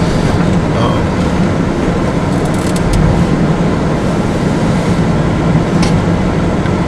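Steady road and engine noise heard from inside a moving vehicle's cabin, with a few brief clicks.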